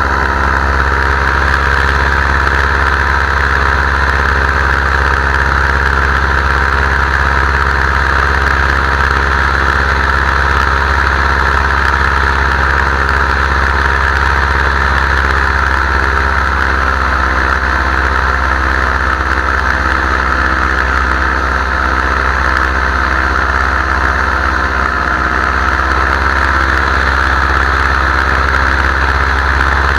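Powered paraglider (paramotor) engine and propeller running steadily in flight, with a slight wavering in pitch in the second half.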